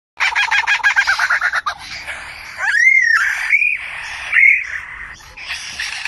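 Male superb lyrebird singing: a rapid run of repeated notes for about a second and a half, then three loud whistled notes, the first of them rising and falling in an arch.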